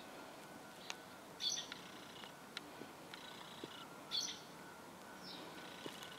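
A bird calling twice, a short high chirp repeated about every two and a half to three seconds, with a few faint ticks between.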